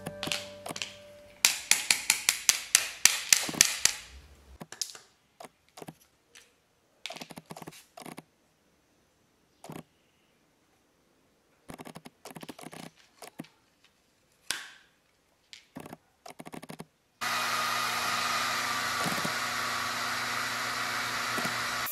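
Sharp wooden clicks and taps, a quick run of them a couple of seconds in and scattered ones after, as cut-out letter pieces are pushed out of a laser-cut plywood sheet and handled. About three-quarters of the way through, a Sculpfun S10 laser engraver starts up with a steady whirring hiss.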